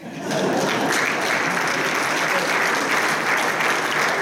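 Audience applauding: a roomful of people clapping, breaking out all at once and holding steady.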